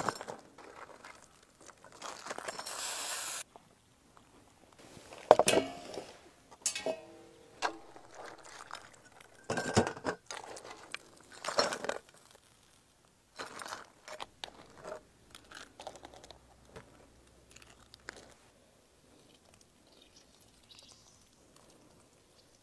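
Metal skimmer, steel pot and lid clinking and scraping as boiled crayfish are scooped out, with several sharp clanks and a hiss lasting about a second and a half near the start. Later come fainter clicks of the cooked crayfish shells being handled.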